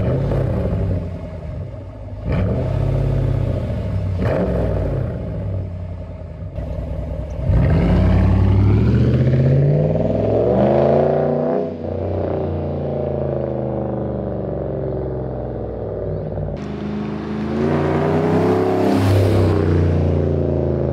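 Ram 1500's Hemi V8 exhaust revved several times, each rev rising and falling in pitch. The sound changes abruptly about three-quarters through.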